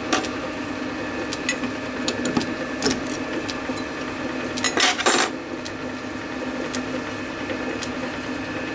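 Metal clicks and clinks as a small brass part is taken out of a lathe's three-jaw chuck, turned round and refitted, with two louder clanks about five seconds in. A steady machine hum runs underneath.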